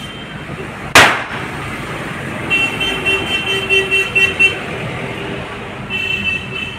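A hand-held party popper (confetti cannon) goes off with one sharp bang about a second in. High-pitched tooting tones follow in pulses a couple of seconds later and again near the end.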